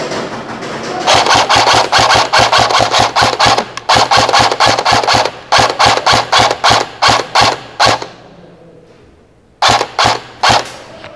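Airsoft guns firing: a dense rapid-fire burst, then quick strings of shots, and three more shots near the end after a short lull.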